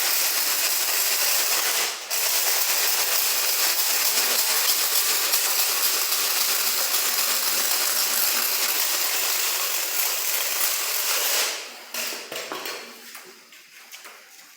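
Steady, loud hissing noise with no clear rhythm or pitch, breaking off briefly about two seconds in and dying away near the end.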